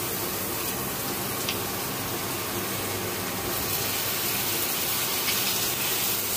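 Sliced onions sizzling steadily in hot oil in a frying pan.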